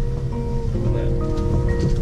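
Background music with a few held notes begins, laid over the low, steady rumble of the motorhome driving, heard inside its cab.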